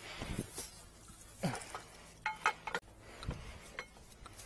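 Scattered metal clinks and knocks of hand tools against pipe fittings while a fire-line fitting is worked on.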